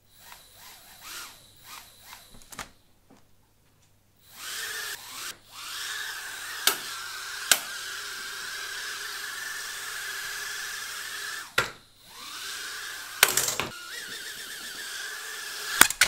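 Homemade mini quadcopter's small electric motors and propellers: short spin-up bursts for the first few seconds, then a steady high whine as it flies. The whine drops out briefly about three-quarters of the way through and picks up again, with a few sharp knocks along the way.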